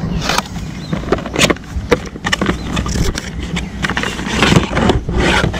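A cardboard box being opened and handled, with irregular rustling and crackling of card and packaging, over a steady low rumble of wind on the microphone.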